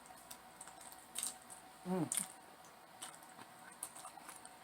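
Faint eating sounds: a few scattered soft clicks and crunches of chewing, with a short falling vocal sound about two seconds in.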